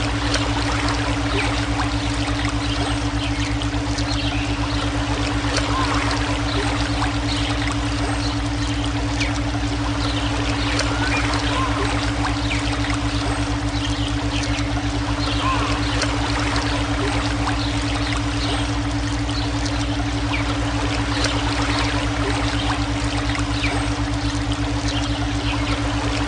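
Running water flowing and splashing steadily, mixed with a synthetic brainwave tone track: a steady hum and a low, rapidly pulsing drone underneath, with no change throughout.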